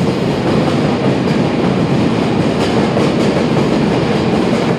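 Steady train noise at a Shinkansen station platform: an even, unbroken noise with no clear rhythm.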